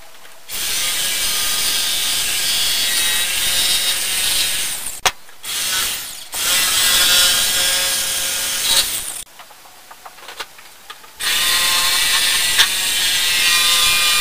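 Jigsaw sawing along the curved outline of a glued-up wooden paddle blade, its motor running with a steady whine. It starts about half a second in and stops briefly around five and six seconds in. It then pauses for about two seconds with a few light knocks and starts cutting again about eleven seconds in.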